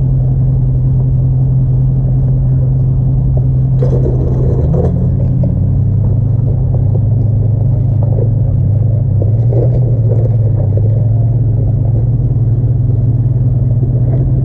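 Jeep Grand Cherokee WJ engine running steadily at low trail speed, its pitch dropping about five seconds in and easing up again a few seconds later. A short rattling crunch about four seconds in.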